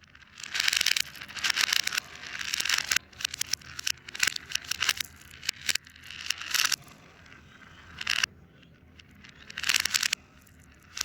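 Crinkling, scraping handling sounds of fidget toys played in reverse, in a series of bursts that each swell and then cut off abruptly.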